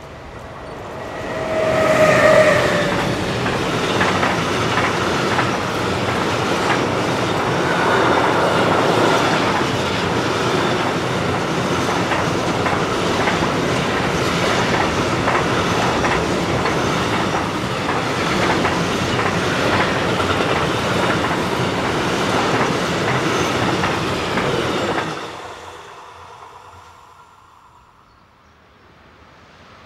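Siemens Vectron electric locomotive passing at speed, followed by a long freight train of intermodal pocket wagons carrying lorry trailers. The wheels make a loud, steady rush with a rhythmic clatter over the rail joints, which drops away steeply about 25 seconds in as the end of the train goes by.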